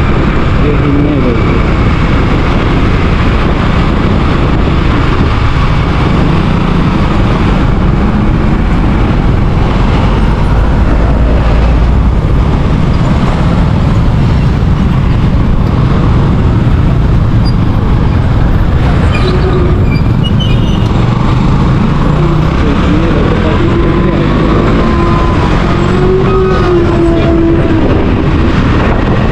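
Motorbike engine running on the move under a strong low rumble of wind and road noise, with the engine note rising and falling in the last third.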